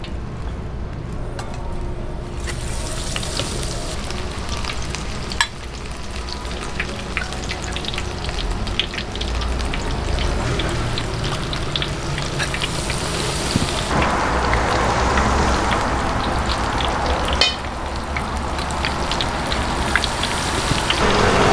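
Battered vegetable fritters (twigim) sizzling in hot oil, with a metal spatula and tongs clinking and scraping against a stainless bowl and the wok. The sizzle grows louder about two-thirds of the way through and again near the end, as more batter goes into the oil.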